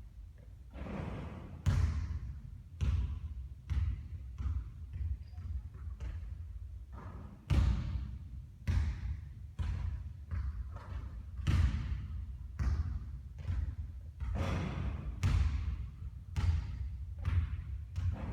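Basketball bouncing on a court: a run of sharp thuds at irregular intervals of about one a second.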